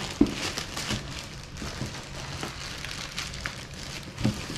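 Stiff plastic wrapping crinkling and crackling as it is handled and pulled at, with one sharp click near the start. The plastic is tough and resisting being torn.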